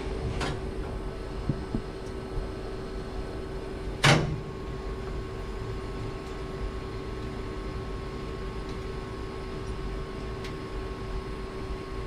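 Steady machine hum from a Tormach 1100M CNC mill standing by, not cutting, with a single loud sharp knock about four seconds in. From the knock on, a second, higher steady tone joins the hum.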